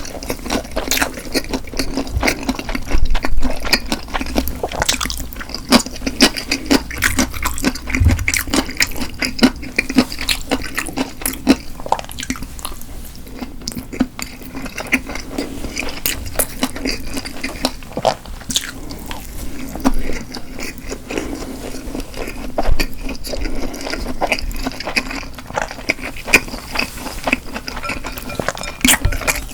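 Close-miked eating sounds: chewing and wet mouth noises, with a dense run of small smacks and clicks.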